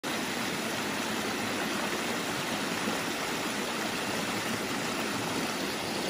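A shallow, rocky stream running over small cascades and around boulders: a steady, even rush of water.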